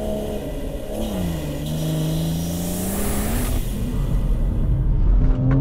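Turbocharged straight-six engine of a stage 3 BMW M240i running a big Pure 800 turbo, heard from inside the cabin. About a second in the engine note drops as it comes off the throttle, then holds low and slowly climbs again as it pulls, with a rushing hiss near the middle.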